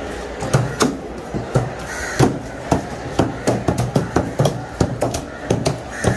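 Meat cleaver chopping through tuna flesh onto a wooden chopping block: quick, uneven chops, about three or four a second.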